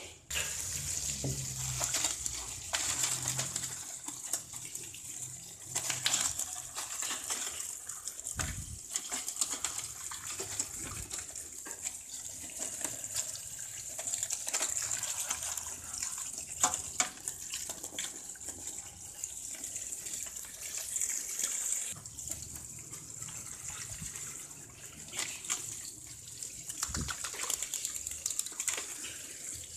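Water from a garden hose pouring and splashing onto live spiny lobsters in an aluminium steamer pot: a steady rushing hiss with scattered knocks.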